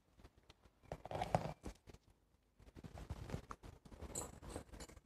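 Faint scattered taps and small knocks of small stones being set down at the base of a cross and objects being handled on a cloth-covered table.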